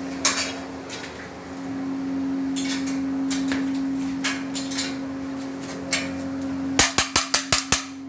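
Steady machine hum with scattered metallic clinks, then a quick run of about seven sharp metal knocks near the end.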